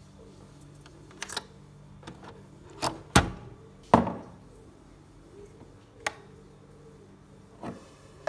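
A string of separate clicks and knocks, about eight, the loudest about three and four seconds in, from handling a Nespresso Lattissima coffee machine and its parts, over a faint steady low hum.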